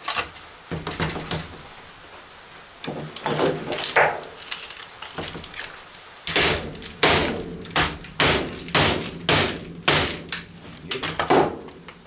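Sharp metallic knocks and clanks as the sheet-metal frame and aluminum strip of a large LCD monitor are pried at and banged loose. A few scattered knocks at first, then a run of about a dozen, roughly two a second, in the second half.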